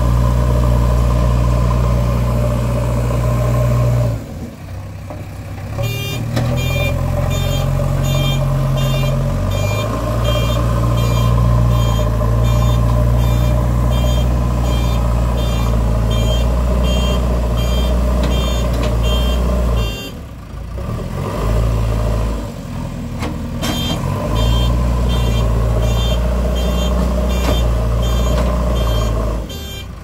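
JCB 3DX backhoe loader's diesel engine running under load, easing off briefly twice, about four seconds in and again about twenty seconds in. Its reversing alarm sounds as a steady string of high beeps in two long spells while the machine backs up between pushes of soil.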